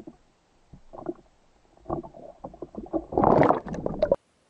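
Sea water slapping and gurgling against a camera held at the surface in small irregular splashes, then a louder rush of splashing about three seconds in as the camera dips underwater. The sound cuts off suddenly just before the end.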